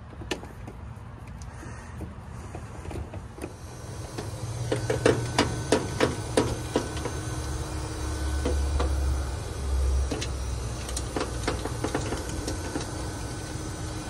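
A run of sharp knocks, about three a second, then a steady low hum with a held tone from a Carrier inverter heat pump's outdoor unit running. Scattered clicks come from refrigerant gauge hoses being handled at its service valves.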